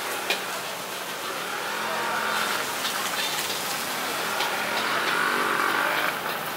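Busy street ambience: passing motor traffic with indistinct voices, and a few sharp metal clinks from wok cooking at a street-food stall.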